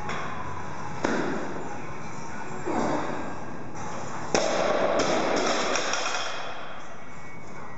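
Loaded barbell with rubber bumper plates during a power clean at 85 kg: a sharp clank about a second in as the bar is pulled and caught, then a louder crash a little after four seconds in as the bar comes back down to the floor, the plates rattling and bouncing for about a second and a half.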